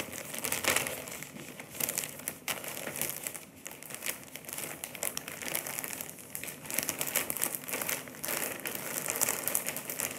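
Plastic wrapping crinkling and cloth rustling as a bundle of rolled white fabric is handled, a continuous run of small crackles.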